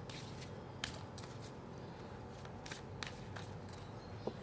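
Deck of oracle cards being shuffled and handled in the hands: soft, scattered flicks and taps of the cards, with a sharper one about a second in and a few close together near the end.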